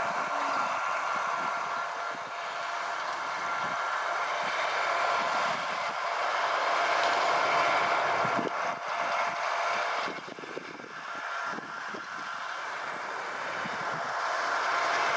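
Rostselmash Don 1500 combine harvester running, a steady machine whine over a noisy rush, briefly quieter about two-thirds of the way through.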